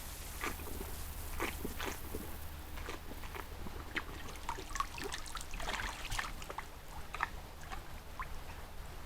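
Scattered crackles and rustles of an animal moving or foraging in vegetation close to a trail camera, over a steady low hum.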